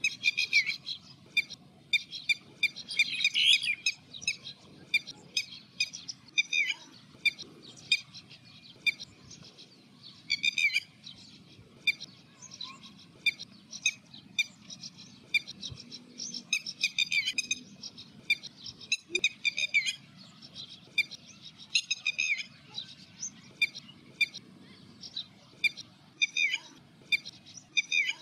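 Red-wattled lapwing calling over and over, in quick runs of sharp, high notes.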